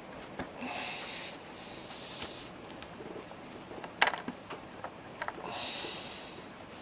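Paracord being pulled and wrapped around a small knife handle, with rustling of cord and sleeve close to the microphone. Scattered light clicks and taps, the sharpest one about four seconds in.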